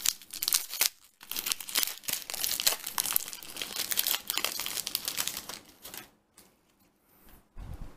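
Foil wrapper of a Yu-Gi-Oh! Galactic Overlord booster pack crinkling and tearing open in the hands, dense crackling for about six seconds that then stops.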